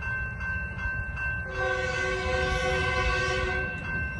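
Horn of an approaching Metrolink train, likely its F125 locomotive. It sounds one held chord of about two seconds, starting about a second and a half in and cutting off near the end. Underneath it, the grade-crossing warning bell rings steadily over a low rumble.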